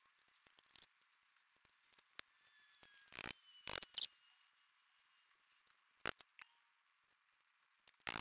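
A few brief, separate scrapes of hand work on wooden chair parts: a cluster of three a little past three seconds in, one around six seconds, and one at the very end, with quiet between.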